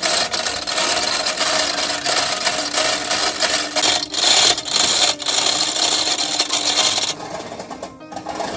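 Manual chain hoist being worked to tighten chains around a load of bamboo poles, its ratchet and chain running in a continuous rasping clatter with two short breaks, stopping about seven seconds in.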